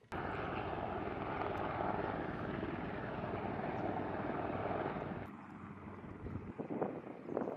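Helicopter running close by, a loud, steady rush of rotor and engine noise that starts abruptly. About five seconds in it gives way to quieter noise with scattered knocks and rustles.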